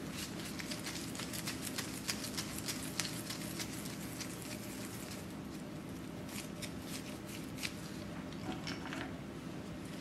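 Disposable gloves crinkling and dough patting as gloved hands press a ball of chocolate cookie dough flat between the palms. The small crackles come thick and fast for the first few seconds, then sparser, over a low steady hum.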